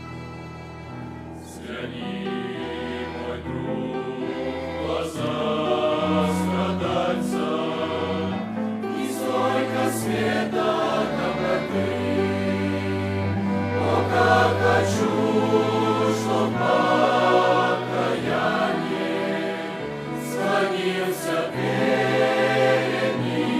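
A youth choir sings a Russian hymn over steady low accompaniment notes. The voices come in about a second and a half in.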